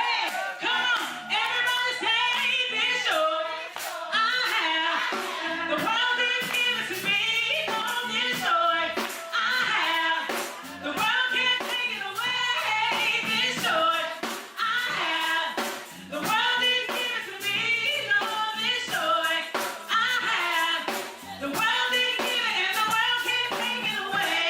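Live gospel music: a woman singing over a steady beat.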